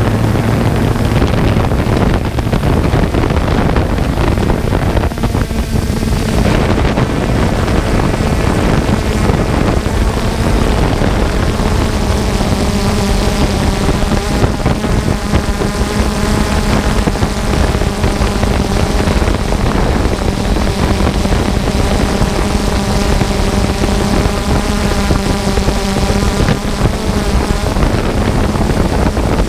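Motor and propeller noise from the small aircraft carrying the camera: a steady, loud droning hum over rushing wind noise on the microphone. A set of higher steady whining tones comes in about twelve seconds in and fades out near the end.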